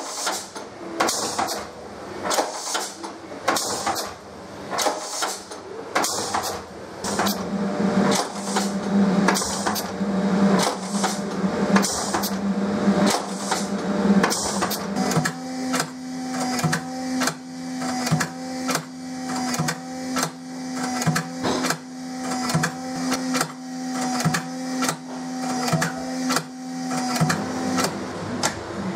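Door lock hardware on cycle-testing rigs clicking and clacking over and over as the actuators drive the latches and locks. The clicks come about two a second at first and about one a second later on. A steady machine hum runs under them through the second half.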